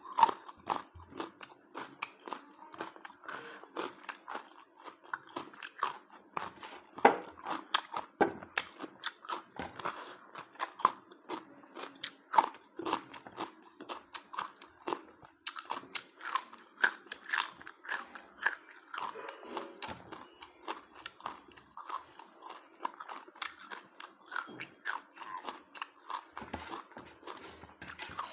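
A person eating a mutton-and-rice meal: steady chewing and biting, with frequent crunches and mouth clicks coming irregularly, several a second.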